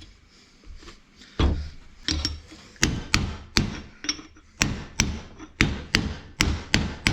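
Hammer blows driving a new bearing into place on a tractor's brake and axle assembly: sharp single strikes, about two to three a second, starting about a second and a half in.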